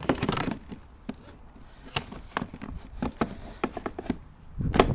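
Irregular clicks and knocks of hands handling equipment, with a busier cluster at the start and another near the end; the mower's motor is not running.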